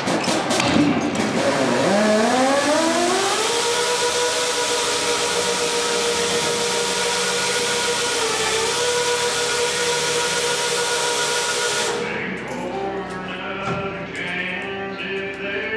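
Overhead hoist lifting a steel burial-vault form off the cast concrete, with a loud steady air hiss and a motor whine that rises in pitch over the first few seconds and then holds steady. Both cut off together about twelve seconds in.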